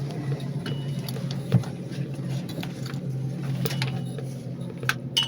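Elevator car in motion: a steady low hum, with light clicks and three short high beeps.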